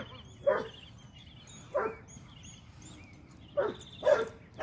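A dog barking: about five short, sharp barks at uneven intervals, two of them close together near the end.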